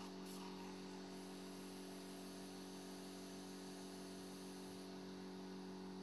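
Faint steady electrical hum with an even hiss beneath it: the background noise of the recording, with no other sound.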